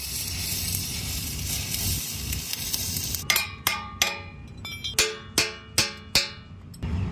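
Electric arc welding on a steel pipe tee, a steady crackling hiss, then cuts off about three seconds in. A hammer then strikes the steel fitting about seven times in quick uneven succession, each blow ringing briefly.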